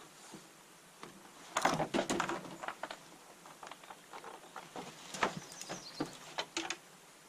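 A canoe being hoisted up onto a person's shoulders: a run of knocks, scrapes and rustles, thickest about one and a half to two and a half seconds in, then scattered sharper clicks and footsteps on the forest floor as he starts walking.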